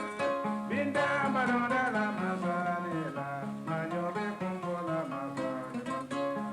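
Kora, the 21-string West African harp-lute, plucked in a steady, repeating pattern of interlocking notes. A man's voice sings a wavering phrase over it from about a second in.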